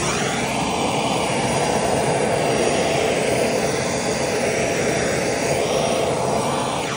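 Handheld heat gun running, a steady rush of fan and blown hot air over wet epoxy resin, rising and falling slightly as it is swept across the surface. It is warming the resin, which is sluggish on a cold day.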